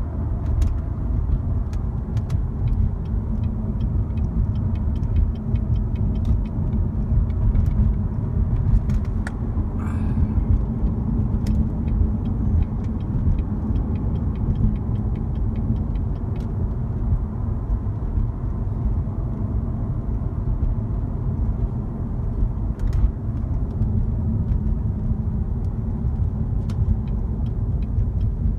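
2014 Chevrolet Corvette's 6.2-litre V8 and its tyres giving a steady low rumble while driving at an even pace. Scattered light clicks and knocks run through it, with a brief chirp about ten seconds in.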